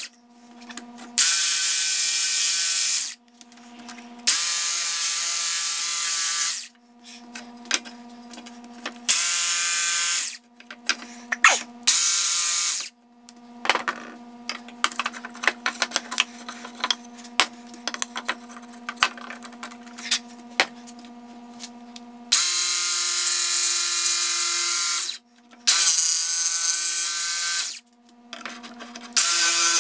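Ryobi cordless jigsaw cutting a soft cedar board in a series of bursts a few seconds long, starting and stopping sharply as the trigger is pulled and released. In a quieter stretch in the middle, scattered clicks and knocks sound over a low steady hum.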